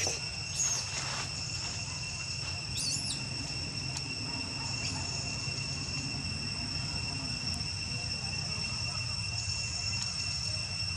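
Steady, high-pitched drone of forest insects, with a few short high chirps about half a second in and again about three seconds in.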